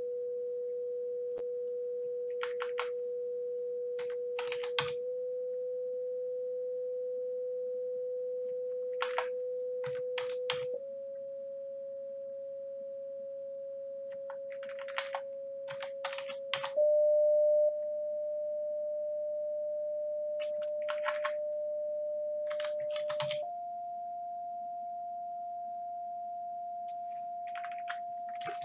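A steady sine test tone from a signal-generator program, stepping up in pitch four times from about 490 Hz to about 700 Hz. Short bursts of computer keyboard typing come just before each step, as each new frequency is keyed in.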